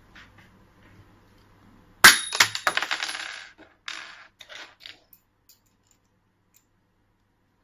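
A machine screw being cut shorter: a sudden sharp metallic snap about two seconds in with a brief ringing, then small metal pieces clattering for over a second, followed by a few lighter clicks.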